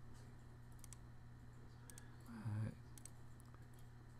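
Computer mouse clicking a few times, sharp single clicks placing the points of sketch lines, over a faint steady low hum. A brief voiced 'mm' about two and a half seconds in.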